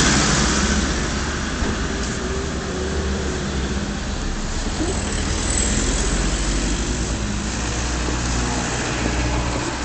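Street traffic: an SUV passing, loudest at the start and fading over the first second, then a steady low rumble of cars on the road.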